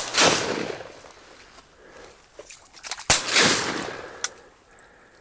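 Two shotgun shots about three seconds apart, each followed by a rolling echo that dies away over a second or so.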